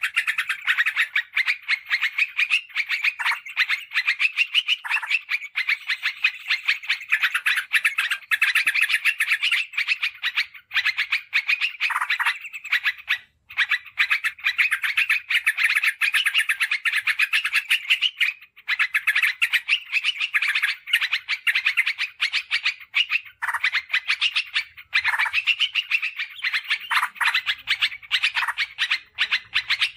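Yellow-vented bulbul (trucukan) singing in a fast, busy chatter of many notes a second, with short breaks about 13 and 18 seconds in; a lure recording used to call in wild bulbuls.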